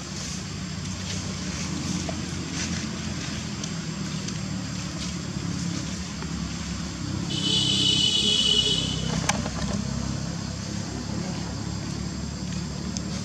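Steady low rumble of a motor vehicle engine running nearby. About halfway through comes a high, steady squeal lasting a second and a half, the loudest sound here, followed by a single sharp click.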